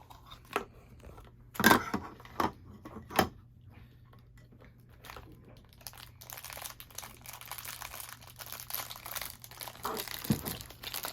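Plastic blind-bag toy wrapper being handled and torn open: a few sharp clicks about two to three seconds in, then steady crinkling and rustling of the packet from about six seconds on.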